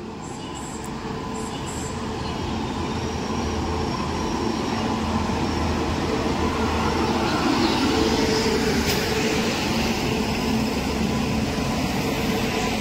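Electric locomotive hauling a passenger train into a station and rolling past close by. The rumble of wheels on rails and a steady hum build up over the first several seconds and then hold as the coaches pass.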